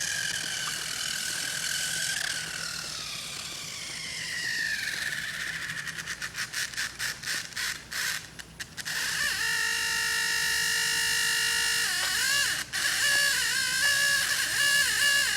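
A New Bright toy RC car's small electric motor and gears whining, the pitch sagging as it strains on a hill, then stuttering in rapid pulses. About nine seconds in, an electronic siren effect starts: a steady, several-note wail that begins to warble near the end.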